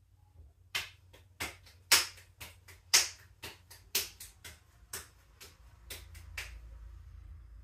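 Hands slapping and patting lumps of clay into balls: about a dozen sharp slaps at a steady pace of roughly two a second, starting about a second in and stopping near the end, where a low hum comes up.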